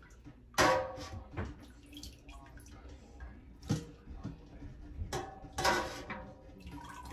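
A long metal slotted spoon clanking against a stainless steel stockpot and mesh strainer while chicken pieces and bones are scooped out of broth, with broth splashing and dripping. Two louder clanks ring briefly, about half a second in and near the six-second mark.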